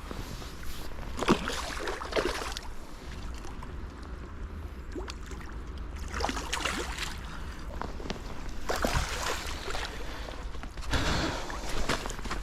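River water sloshing and splashing in several irregular bursts, over a steady low rumble.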